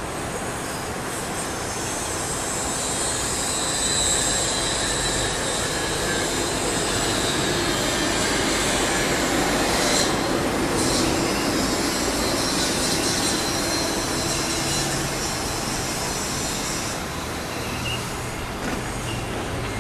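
Steady vehicle noise that swells and then eases off, with thin high whining tones near the start.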